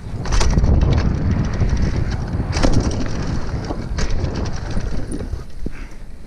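Mountain bike riding fast down a dirt trail: wind buffeting the microphone and tyres rumbling over the dirt, with a few sharp knocks and rattles from the bike over bumps. The rumble eases near the end.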